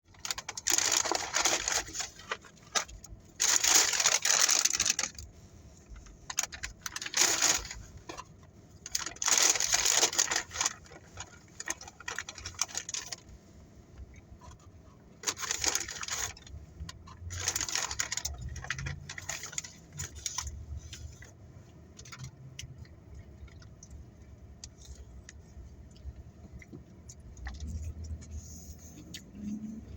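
Repeated bursts of rustling and handling noise, each a second or two long, about seven of them, then thinning out to scattered small clicks over a faint low hum.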